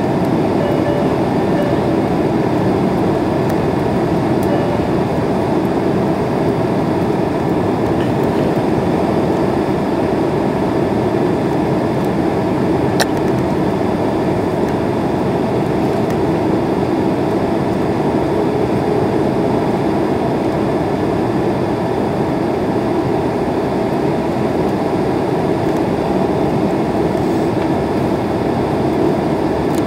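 Steady cabin noise of a jet airliner on its landing approach: engine and airflow noise heard from a window seat over the wing. A single brief click is heard about 13 seconds in.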